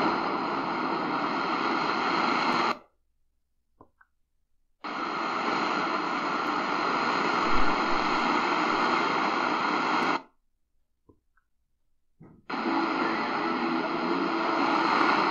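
Shortwave static and hiss from the speaker of a C.Crane CCRadio SW portable receiver being tuned through the 49-metre band, with no clear station heard. The sound cuts out completely twice, each time for about two seconds, as the receiver mutes while the frequency steps, and then the hiss comes back.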